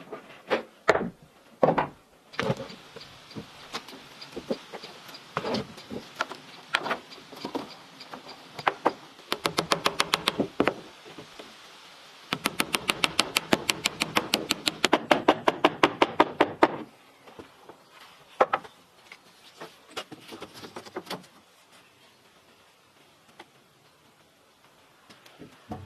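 Building work: scattered sharp knocks, then two runs of fast, even tapping at about eight strikes a second, then a few more knocks before it goes quiet near the end.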